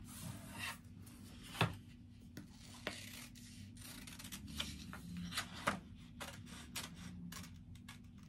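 Scissors cutting through stiff craft paper in a series of short, irregular snips, with soft paper rustling between them.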